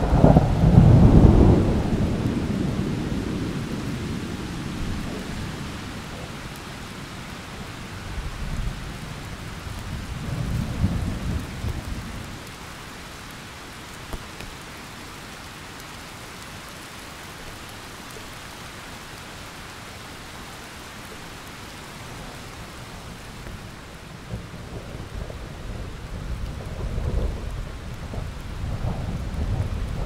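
Thunderstorm: steady rain with rolling thunder. A loud low rumble peaks about a second in and fades over several seconds, another rolls through around ten seconds in, then after a stretch of rain alone the thunder builds again near the end.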